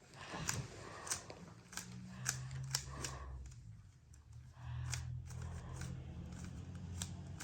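Plastic 3x3 Rubik's Cube being turned by hand, its layers clicking and clacking in quick, irregular strokes.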